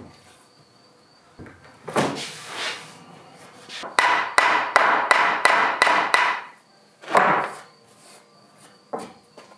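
Hammer blows knocking oak tongue-and-groove boards together at the joint: a couple of single knocks, then a quick run of about ten strikes at roughly four a second, then further single knocks.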